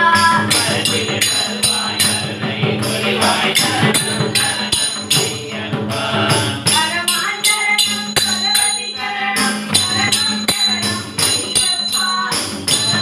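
Boys singing together to a hand-played double-headed barrel drum, with small percussion keeping a steady beat of sharp, high strokes, about three a second.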